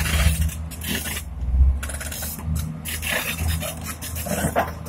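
Diesel engines of Komatsu pipelayers running steadily with a low rumble, overlaid by irregular bursts of rushing, rasping noise.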